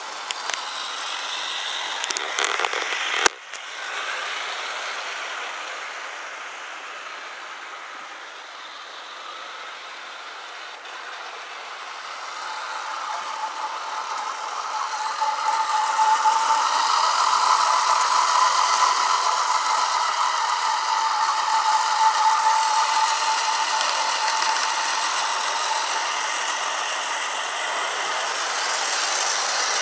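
O gauge model train running on garden-railway track: wheels rattling over the rails with a steady whine, growing louder in the middle as the train passes close, then easing off. A few clicks and one sharp knock about three seconds in.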